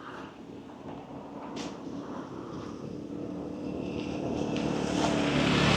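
A motor engine drawing closer, its steady hum growing louder and loudest near the end.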